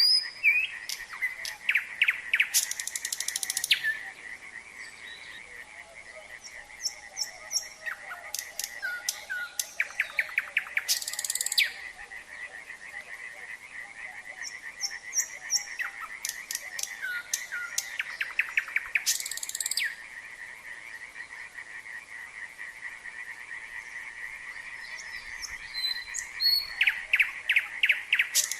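A nightingale sings over a steady chorus of croaking frogs. The bird gives about four phrases, one every eight seconds or so. Each phrase is a run of fast repeated notes ending in a short harsh rattle, with high whistled notes in between.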